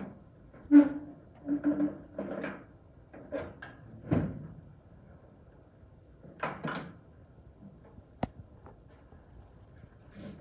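Irregular knocks and clunks, some with a short dull ring, coming in clusters over the first few seconds, then a pair more, then a single sharp click about eight seconds in.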